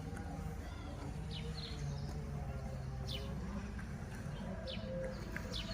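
Small birds chirping now and then, short quick down-sweeping notes, over a steady low background hum.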